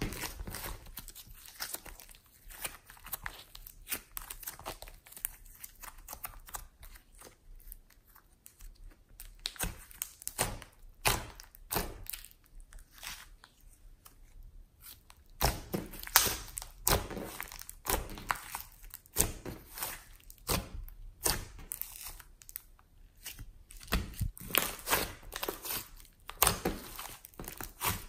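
Hands kneading, stretching and folding a large ball of glossy slime mixed with clay, giving irregular sticky crackles, pops and squelches. They thin out for a while in the middle and come thick and louder from about halfway on.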